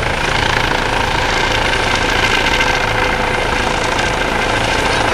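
Helicopter flying low overhead: a loud, steady rotor and engine noise.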